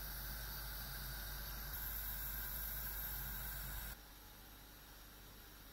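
Steady hiss from a gas stovetop with a pan of asparagus on the flame; about four seconds in it cuts off to a much fainter hiss.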